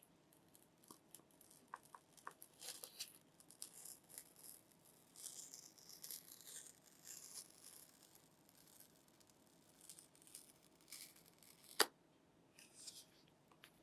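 Faint rustling, scraping and small clicks of a phone box and its packaging being handled and opened, with one sharp click near the end.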